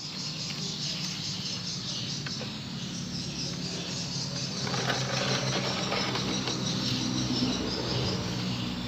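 A steady low hum with insects chirping over it.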